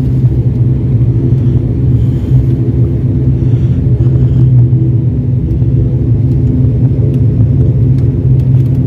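The ATR 72-600's turboprop engines and propellers, a loud, steady low drone heard from inside the passenger cabin.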